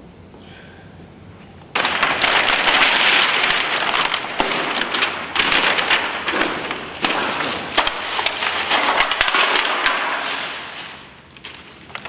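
Plastic bags and crushed drink cans being handled: a dense crackling and rattling that starts suddenly about two seconds in and dies away near the end.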